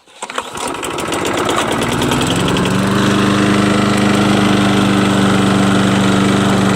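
Craftsman 6.5-horsepower push mower's small single-cylinder engine starting on the pull rope: it catches within a second, its firing quickly picks up speed, and after two or three seconds it settles into steady running.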